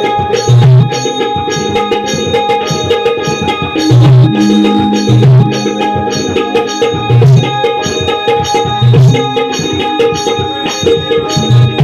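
Shakti-Tura folk music, instrumental: deep hand-drum strokes in a loping rhythm under several held melodic tones, with sharp metallic clicks over the top.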